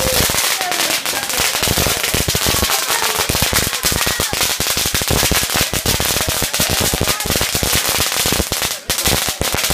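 A long string of firecrackers going off in rapid, unbroken succession, a dense crackle of bangs with a brief lull shortly before the end.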